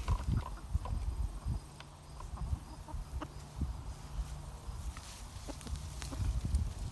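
Chickens clucking, mixed with scattered light clicks and low thumps.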